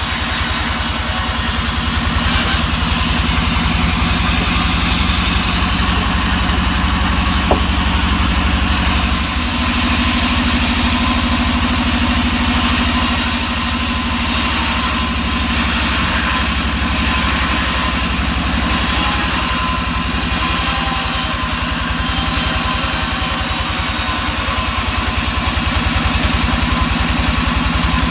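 Engine-driven sawmill running steadily, its engine chugging at an even pace, with stretches of louder high hissing as the saw cuts through pine.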